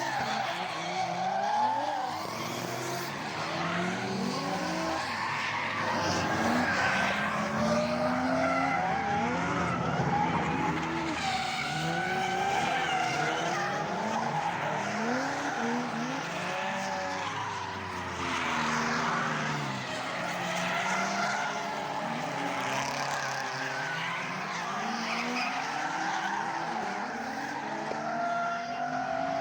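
Drift cars sliding at speed: several engines revving up and down at once while tyres squeal and skid.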